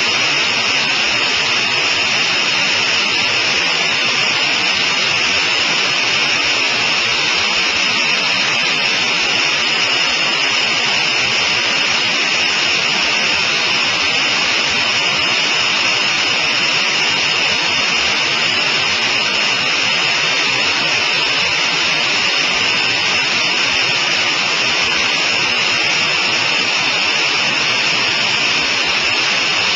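Steady cockpit noise of a Sonerai I light aircraft in cruise flight: the propeller engine and the rushing airstream blend into one loud, even hiss that does not change.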